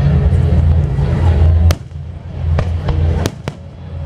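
Aerial fireworks going off: a low rumbling of booms, then about five sharp cracking reports in quick succession from about halfway through.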